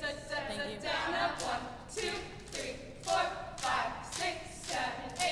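Recorded music with singing voices and a steady beat, the beat falling about every half second.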